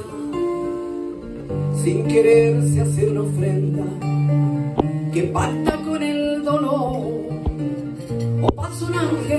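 A woman singing into a microphone, accompanied by a classical acoustic guitar.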